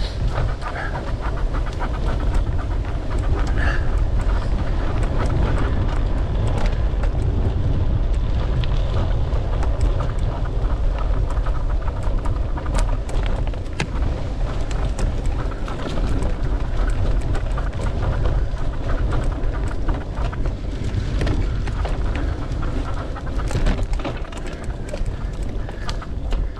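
Wind rumbling over the microphone of a mountain bike being ridden along a dirt trail, with frequent short knocks and rattles from the bike and the trail surface.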